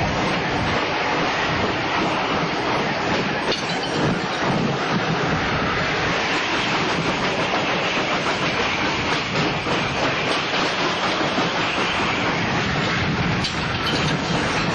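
Schwarzkopf Jet Star II steel roller coaster car running along its track at speed: a steady rattling rumble of the wheels on the rails with a constant hiss.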